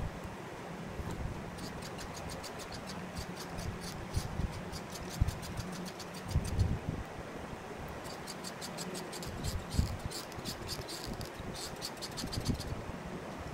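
Hot glue gun in use: two runs of rapid, even clicking, about five or six a second, with low knocks from the tin being handled on the bench.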